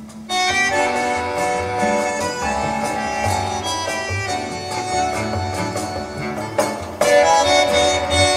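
Recorded music played over a hi-fi loudspeaker system: held, reedy melodic notes that come in just after the start and swell louder about seven seconds in.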